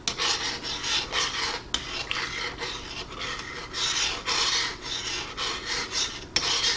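Metal spoon stirring soup in a stainless steel saucepan, scraping the bottom and sides in quick repeated strokes, about three a second, while beaten egg is drizzled into the hot broth.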